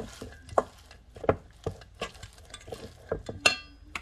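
A bare hand mixing and squeezing a wet mushroom-and-flour mixture in a stainless steel mixing bowl, with irregular knocks and taps from the bowl and one ringing metal clink about three and a half seconds in.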